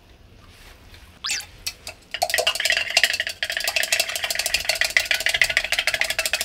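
An egg being beaten briskly with chopsticks in a plastic measuring jug: a single knock about a second in, then fast, even clicking of the chopsticks against the jug's wall, which rings as it is struck.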